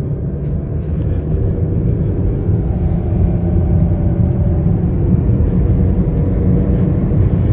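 Toyota Auris hatchback heard from inside the cabin while driving: a steady low rumble of engine and road noise, slowly getting louder.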